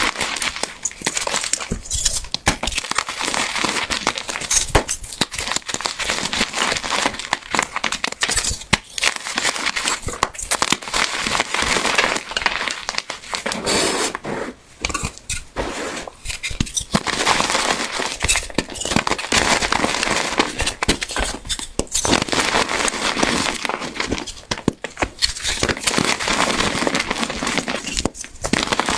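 Crunchy dried soap cubes being crushed by hand: dense crunching and crackling, with a few brief pauses.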